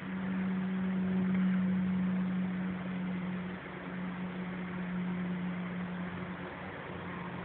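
Steady low hum of an idling car engine over a faint hiss. The hum dips briefly about three and a half seconds in.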